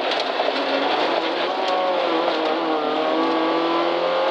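Toyota Corolla rally car's engine heard from inside the cabin, driving at speed over road noise, its revs falling slowly through the middle of the stretch, with a few sharp ticks.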